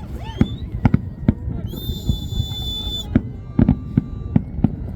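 Fireworks bursting in quick, uneven succession, with about eight sharp bangs. A high, steady whistle is held for about a second, starting about two seconds in.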